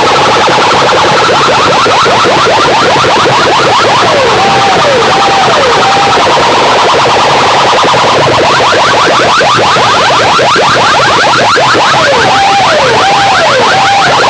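Very loud, distorted siren-like electronic effect played through big DJ sound-system loudspeakers. It is a fast train of falling chirps, and twice a run of three slower falling whoops cuts across it.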